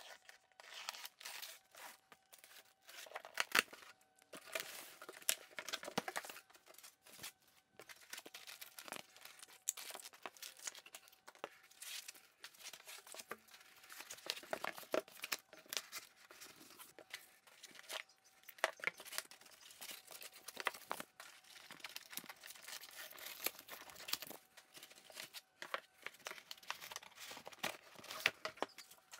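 A cardboard shipping box being unpacked: a knife slitting the packing tape, then cardboard flaps and foam packing inserts rustling and scraping as heavy parts are lifted out. Irregular scrapes and sharp knocks come and go throughout.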